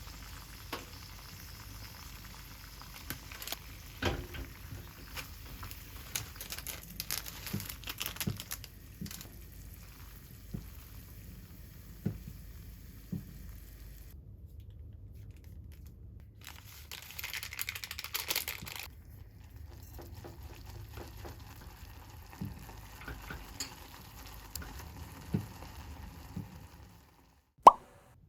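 Food sizzling in a hot pan, with short clicks and knocks of a utensil stirring against the pan. The sizzle breaks off about halfway through and comes back briefly, and there is one sharp, loud click near the end.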